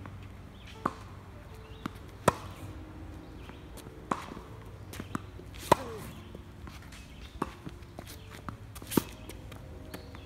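A tennis rally on a hard court: sharp pops of the ball struck by the rackets and bouncing on the court, about one every second or two. The loudest pops come from the near player's strokes.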